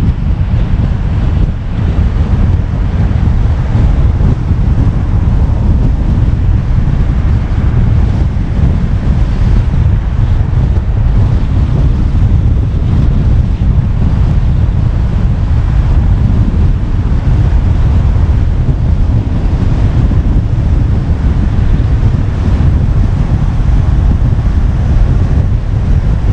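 Steady low rumble of wind buffeting the microphone of a car-mounted GoPro, over the road noise of the moving car.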